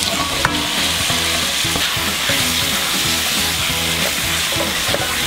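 Marinated beef shank slices and lemongrass sizzling in hot oil in a pot as they go in and are stirred with chopsticks: a steady, hissing sizzle, with a sharp tap about half a second in.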